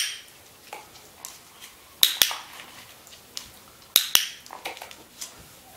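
Handheld dog-training clicker clicking: a quick double click right at the start, and again about two and about four seconds in, the press and release of the clicker marking the dog's behaviour for a reward.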